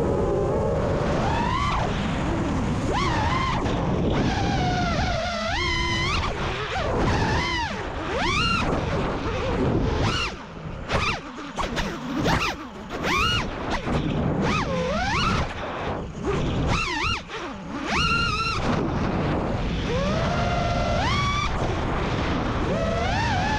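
FPV quadcopter's brushless motors and propellers whining. The pitch sweeps up and down again and again with the throttle, and it breaks up in choppy dips through the middle as the throttle is cut and punched during flips and dives.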